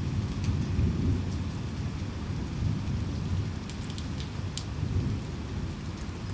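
Rainstorm with a low rumble of thunder that slowly dies away under steady rain, with sharp drips ticking close by, a few clustered in the middle.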